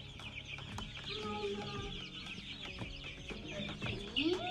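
A flock of young broiler chickens peeping: a dense, continuous chatter of short high chirps, with a few lower calls here and there.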